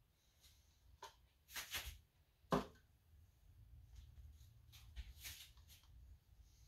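Quiet handling sounds of plastic paint cups and wooden stir sticks being moved on a plastic-covered table: a few short scuffs and rustles, with one sharper knock about two and a half seconds in as a cup is picked up or set down.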